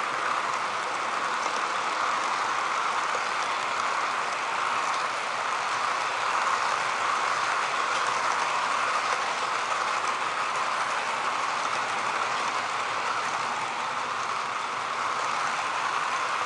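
HO scale model freight cars rolling past close to the microphone, with a steady rolling noise of their small wheels on the rails.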